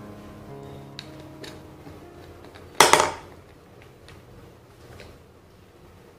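Wax crayons clattering inside a cardboard crayon tube as it is handled, with one short loud rattle about three seconds in and a few light clicks around it. Faint background music fades out about two seconds in.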